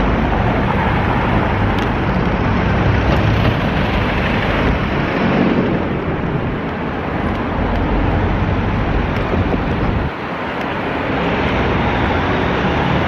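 Steady city road traffic, buses and cars running close by, heard from a moving bicycle with wind rumbling on the microphone. The noise briefly drops about ten seconds in.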